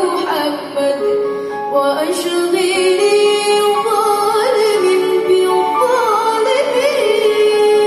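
A young girl singing into a microphone with orchestral accompaniment, amplified through the hall's sound system. She holds long notes with vibrato and slides between them in ornamented runs.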